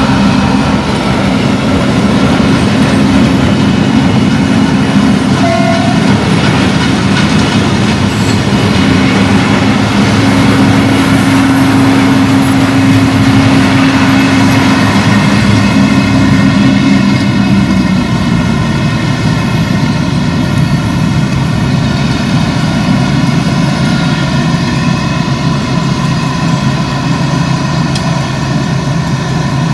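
New Holland combine harvester running under load while cutting grain: a loud, steady engine and machinery drone with a higher whine above it. About two-thirds of the way through its low note shifts lower.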